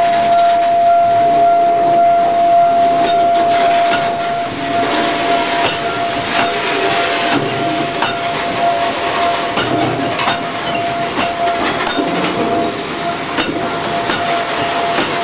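Loaded steel ladle cars rolling slowly past on rail, their wheels knocking over the rail joints. A steady high-pitched tone sounds over the rolling.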